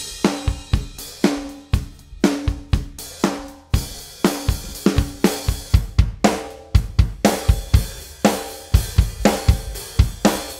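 Drum kit playing a steady beat, about two hits a second, with kick, snare and toms under a wash of cymbals and hi-hat.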